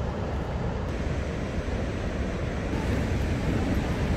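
Steady rush of the fast-flowing Athabasca River rapids, with wind buffeting the microphone.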